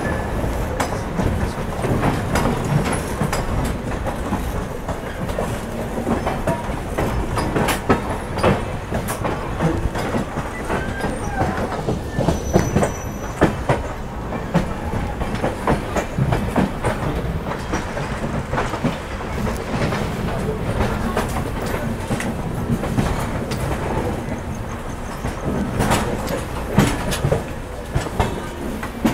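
Passenger train coach running over the yard tracks: steady rumble from the wheels with irregular clattering knocks as they cross rail joints and points, and a faint brief squeal about halfway through.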